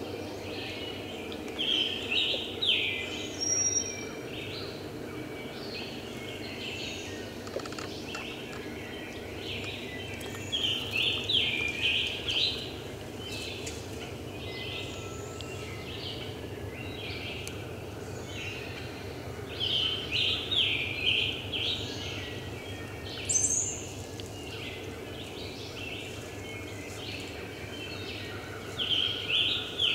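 A songbird singing short phrases of quick, high, descending notes, repeated every several seconds.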